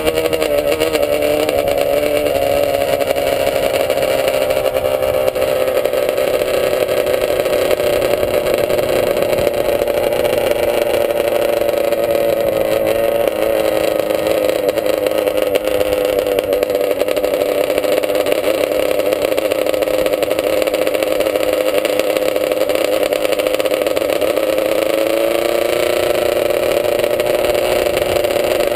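The on-board vehicle's engine running steadily at low speed, its pitch drifting gently up and down, with a small rise near the end, as it cruises slowly.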